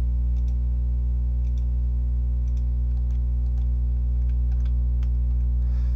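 Steady electrical mains hum with faint, irregular computer mouse clicks, the clicks of placing line points in a CAD sketch.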